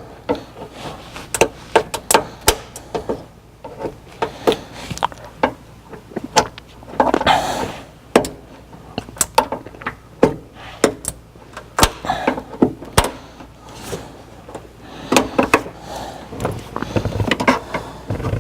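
Quick hard clicks and knocks of plastic interior trim and its clips being pried and handled with a clip remover, with scraping, rustling stretches about seven seconds in and again near the end.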